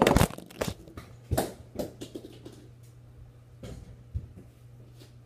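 Several close thumps and rustles, the loudest right at the start, from a phone being handled and bumped while a ball is tossed and caught.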